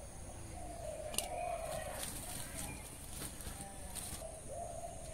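Dry kindling sticks crackling as they catch fire and are pushed into a clay stove, with a sharp snap about a second in. A faint wavering animal call runs underneath.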